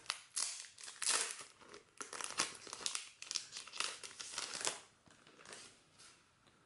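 Clear plastic packaging sleeve crinkling and rustling as it is handled and opened to take out the cards inside, a rapid irregular run of crackles for about five seconds, then much quieter.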